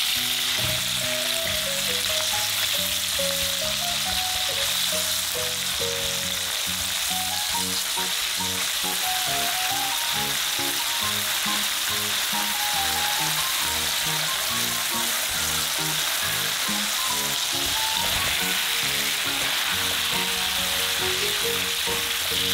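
Ground pork and minced garlic sizzling steadily in hot oil in a frying pan, with light background music underneath.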